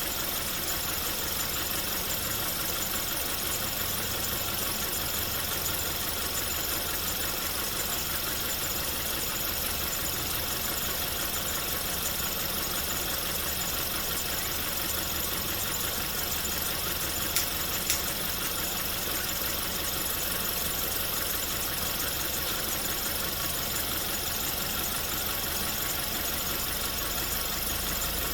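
Volkswagen Golf Touran engine idling steadily, with two brief clicks close together about two-thirds of the way through.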